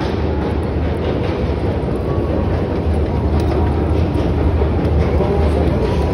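Steady, loud low rumble and hum of metro machinery, the din of an underground metro with its long escalators and trains.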